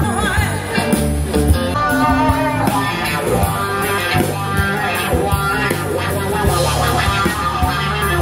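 Blues-rock music with electric guitar over a bass line.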